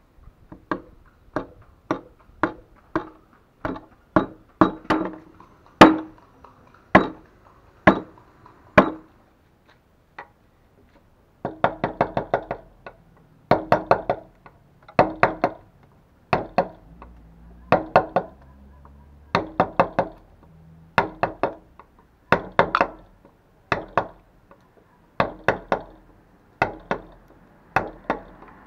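Wood-carving chisel driven into a wooden board by mallet strikes, giving sharp knocks. The strikes come singly at first; after a short pause about a third of the way in they come in quick runs of three to five, about every second and a half.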